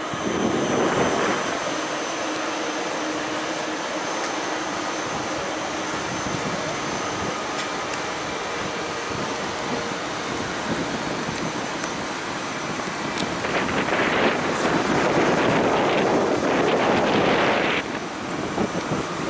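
ICE 3 high-speed electric train alongside the platform: a steady whine and rushing noise with a few thin constant tones, swelling louder just after the start and again for several seconds from about 13 s before dropping back abruptly near 18 s.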